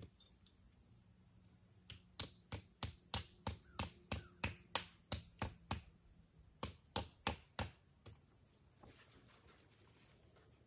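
A quick run of sharp clicks, about three a second, starting about two seconds in, pausing briefly near six seconds, then four more before stopping.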